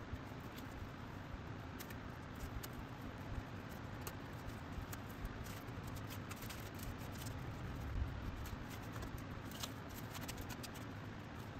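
Faint, irregular scraping and light clicks of a small knife spreading and smoothing synthetic log chinking (PermaChink) into the joints between logs, over a steady low background hum.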